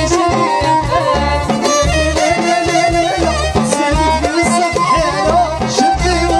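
A live Moroccan chaabi band playing an instrumental passage: a violin melody over keyboard, bass guitar and a steady drum beat.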